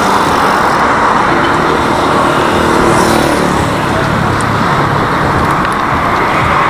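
Steady road traffic noise, heard while riding a bicycle along a busy road.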